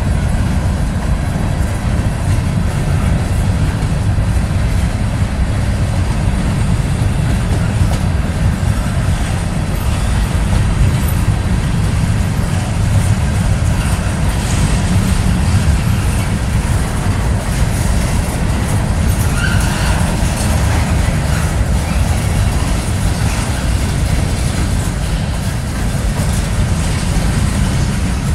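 Freight train cars, covered hoppers and then boxcars, rolling past: steel wheels on the rails making a loud, steady rumble.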